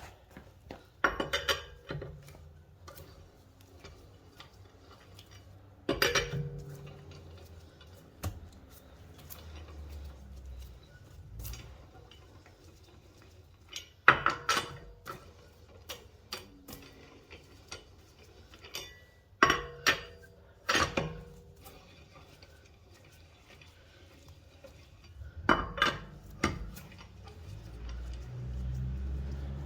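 Scattered metallic clanks and clinks, about half a dozen louder knocks each with a short ring, from a steel four-way lug wrench and lug nuts being handled during wheel removal. A low rumble builds near the end.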